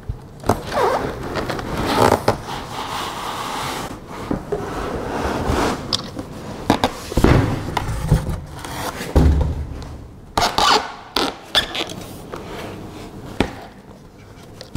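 Cardboard shipping box being unpacked by hand: cardboard scraping and rubbing with scattered knocks, and a few dull thumps about halfway through as the box is tipped and lifted off its contents.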